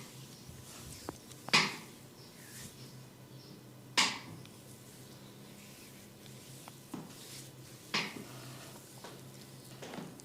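Sharp percussive hits from a barber's hands during a head massage: three loud cracks a couple of seconds apart, with a few quieter taps between.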